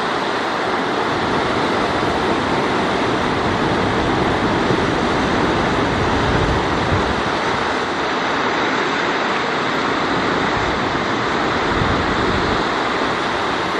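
Fast river rapids rushing: a loud, steady wash of whitewater with no breaks.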